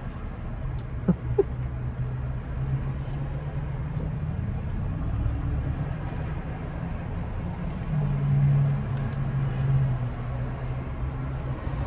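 Car engine running, heard from inside the cabin as a steady low hum that swells for a couple of seconds about eight seconds in. There are two small clicks just after the first second.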